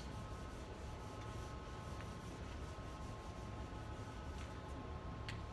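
Whiteboard eraser rubbing across a whiteboard in repeated strokes, faint over a steady low room hum.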